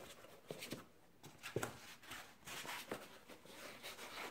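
Faint rustling and scattered light taps of foam strips being pushed down into the compartments of a cardboard storage tray.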